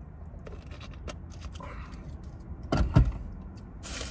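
Handling noises inside a car: a few small clicks and a loud dull thump about three seconds in, then a short rustle near the end, over a steady low rumble.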